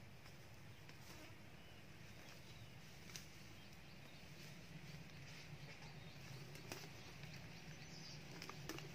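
Near silence: weeds being pulled by hand from around a young plant, heard only as a few faint soft clicks over a faint low hum.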